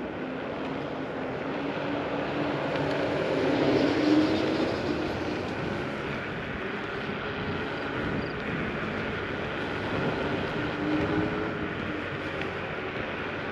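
Dual-motor electric scooter in motion: a faint motor whine over a steady rush of tyre and wind noise, swelling and rising slightly in pitch about four seconds in and again near the end.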